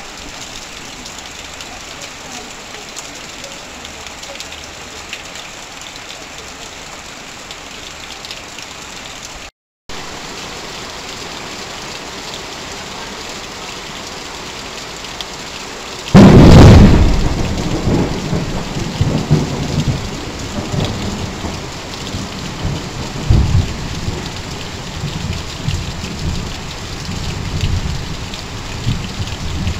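Heavy rain pouring onto corrugated tin roofing and sheeting, with runoff streaming off the roof edge; the sound cuts out for a split second about a third of the way in. Just past halfway a loud thunderclap breaks in, and rumbling thunder rolls on under the rain.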